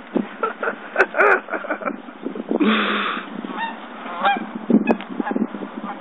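Geese honking repeatedly as a dog flushes them into flight, with calls about a second in and again through the second half. A short rush of noise comes about halfway through.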